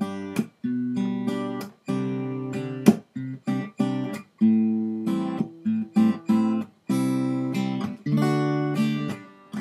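Acoustic guitar fingerpicked in the claw or pull style: the thumb and fingers pluck the strings together in a chord pattern. Several chords are cut off short by muting, and there is a sharp slap on the strings about three seconds in.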